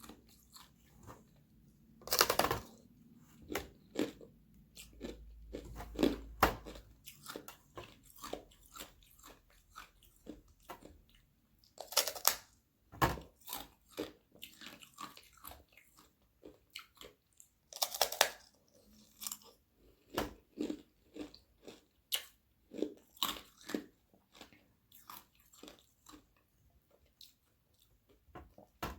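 Thin sheets of frozen carbonated water being bitten and chewed, with crisp crunching and cracking of the ice between the teeth. Louder crunches come about two seconds in and again around twelve and eighteen seconds, with quicker, lighter chews between them.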